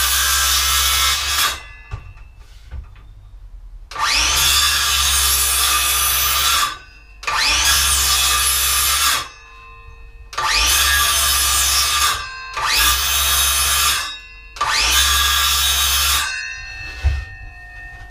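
Handheld circular saw cutting a wooden board in short runs: each time it spins up with a rising whine, cuts for about two seconds and stops, six times over with quieter gaps between. The runs are a row of cuts into the waste of the board, so the waste can be knocked out with a hammer.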